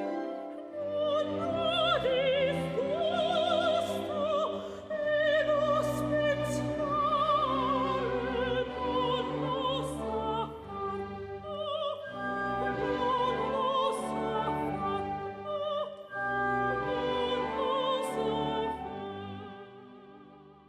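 Operatic singing with orchestral accompaniment: a voice with wide vibrato over sustained strings, fading out near the end.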